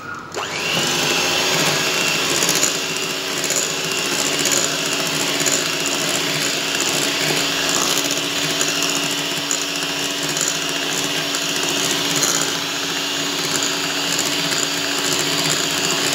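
Electric hand mixer switching on and running steadily at a constant speed, its wire beaters whisking cake batter in a glass bowl.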